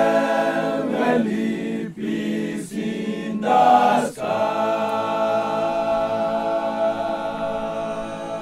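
Choir singing long, held chords in several-part harmony, with short breaks about two and four seconds in, then a last chord held to a close.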